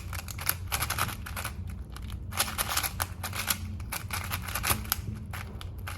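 A 4x4 Rubik's cube being turned fast by hand: a rapid, irregular run of plastic clicks and clacks as the layers snap round.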